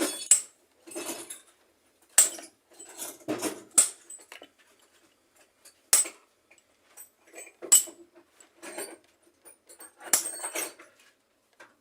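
A metal punch is being struck around the edge of a washing-machine bearing seat, giving a string of sharp metallic taps with a bright ring. The six or so hardest blows come every second and a half to two seconds, with lighter clinks between them. Each tap raises a burr on the rim so the 6205 bearing seats tight instead of sitting loose.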